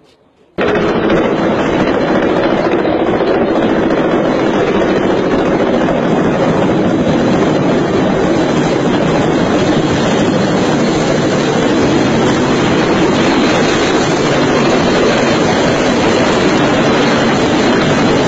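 Steady, loud, rough roar of a tandem-rotor helicopter's rotors, with rotor wash buffeting the microphone. It starts abruptly about half a second in and holds an even level throughout.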